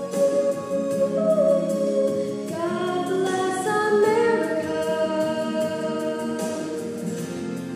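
A girl singing a slow solo song into a handheld microphone, with upright piano accompaniment. She holds a long note, then her melody climbs in steps about halfway through.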